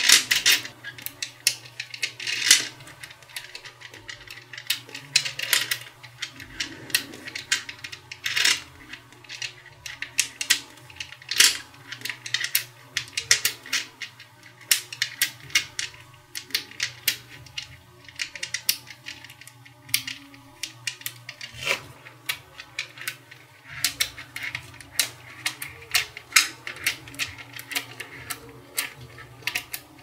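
Small magnet balls clicking and snapping against each other as they are pressed together into strips and rows: an irregular run of sharp clicks, several a second, with the odd louder snap.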